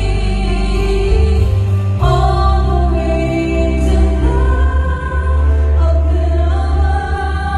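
Music with singing: long held sung notes over a strong, steady bass, moving to a new chord about two seconds in.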